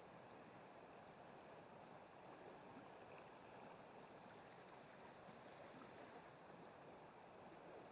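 Near silence: a faint, steady rush of flowing river water.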